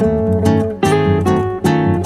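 Background music with acoustic guitar strummed chords, a new chord struck about every 0.8 seconds.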